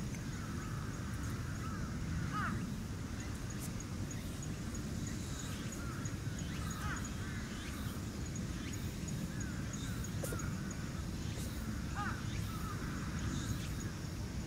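Outdoor ambience: a steady low rumble with a faint, rapid high ticking, and a few short squeaky calls a few seconds apart.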